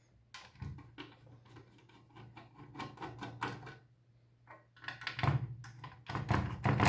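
Screwdriver undoing the Torx screws on the metal casing of a car multimedia head unit: a run of small clicks and ticks of the bit and screws, growing busier and louder about five seconds in.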